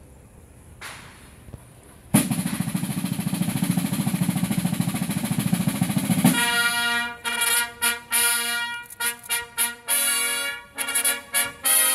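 Field drums break into a fast drum roll about two seconds in, and about four seconds later a herald trumpet ensemble enters over it with a brass fanfare of short, separated chords.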